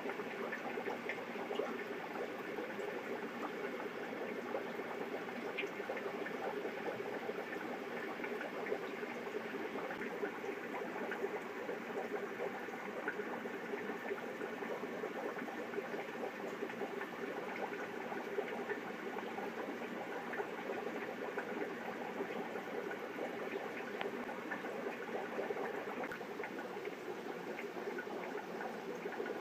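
Aquarium sponge filter bubbling steadily, air rising up its lift tube in a continuous fizzy burble with small pops.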